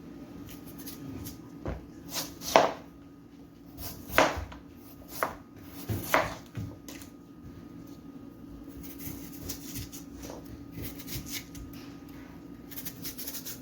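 Knife cutting and peeling a yellow yam: a handful of sharp knocks of the blade, then a run of quick, light scraping strokes later on.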